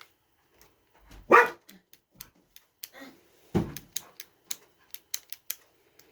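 A dog barking twice, loudly, about a second apart and again near the middle, followed by a quick run of small sharp clicks.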